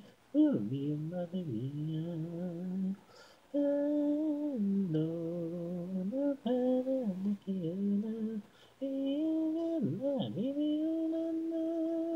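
Unaccompanied sung vocals with no instruments, from an isolated a cappella track of a J-pop song. The voices sing sustained phrases that break off briefly about three seconds in and again around eight and a half seconds, then end on a long held note.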